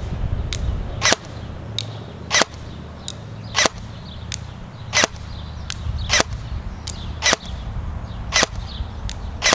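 Airsoft L1A1 SLR electric DMR rifle firing 0.25 g BBs in single shots: seven sharp cracks about 1.2 s apart, each followed about half a second later by a fainter click.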